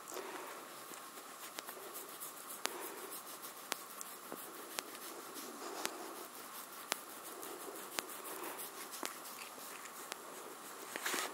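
Footsteps of a person and a young foal walking on frozen, rutted sand, in soft scuffs about once a second, with scattered sharp clicks. A short louder rush of noise comes near the end.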